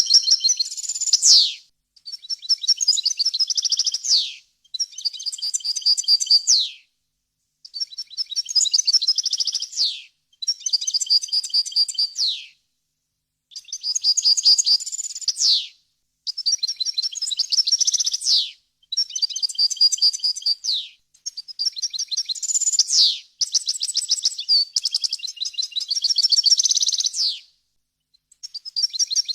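European goldfinch singing: a run of phrases about two seconds long, separated by short pauses. Each phrase is fast, bright twittering and ends in a quick downward sweep.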